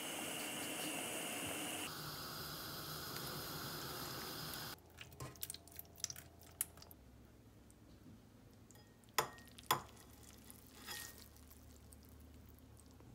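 Pot of noodles at a boil: a steady hiss of bubbling water that changes tone about two seconds in and stops suddenly almost halfway through. Then light clicks of kitchen utensils, with two sharp clinks close together.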